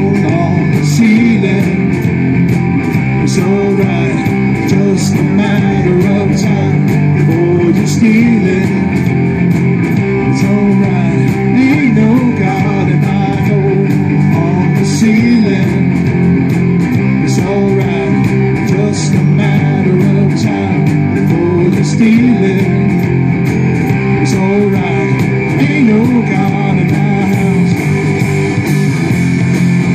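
A live rock band playing: distorted electric guitars, electric bass and a drum kit keeping a steady beat.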